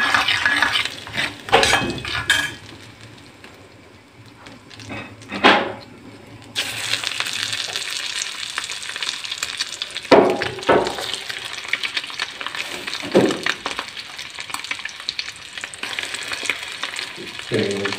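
Fat and eggs sizzling in a stainless steel pan, with a metal spoon clinking against the pan at first. A steady frying hiss comes in abruptly a little after six seconds in, with a few sharp knocks around the middle.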